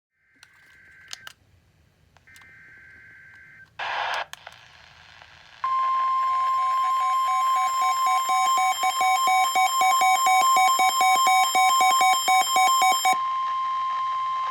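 Faint short buzzes and a burst of radio static, then the NOAA Weather Radio warning alarm, a loud steady 1050 Hz tone held for about nine seconds. It signals that a warning is about to be broadcast. Over most of it a weather radio's own alert beeps pulse rapidly, stopping shortly before the steady tone ends.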